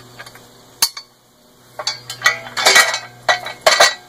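Steel dump-cart parts and loose hardware clinking and rattling as they are handled: one sharp click about a second in, then a run of clinks and rattles over the last two seconds.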